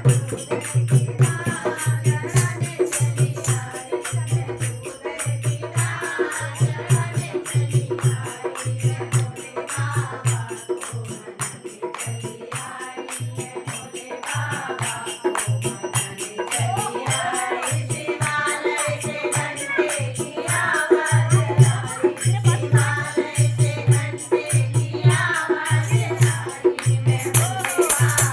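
Hindi devotional song (bhajan to Shiva): a voice singing over a steady drum beat, with shaker or tambourine jingles keeping even time.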